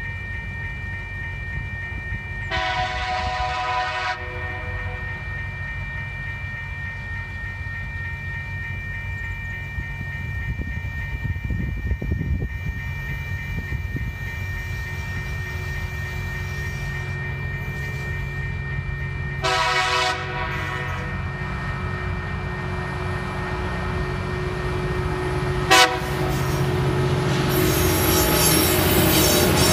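A level crossing bell rings steadily while an approaching TasRail diesel freight train sounds its horn: a long blast a few seconds in, another past the middle, and a short toot shortly before the end. Near the end the leading locomotive TR06's engine and the rolling train grow loud as it reaches the crossing.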